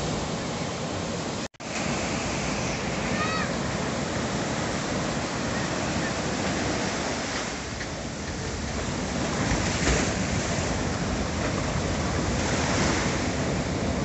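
Ocean surf breaking and foam washing over a flat rocky reef and against a rock cliff: a continuous rush of water that swells louder about ten and thirteen seconds in. The audio drops out for a split second about a second and a half in.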